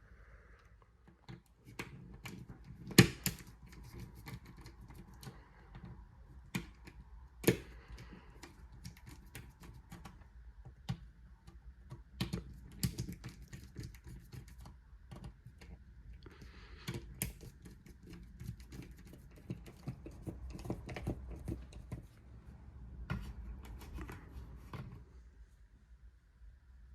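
Fingers pressing and tapping a heat pump system's wall control: a run of irregular plastic clicks and taps, with sharper knocks about 3 and 7.5 seconds in. A faint steady hum sits underneath.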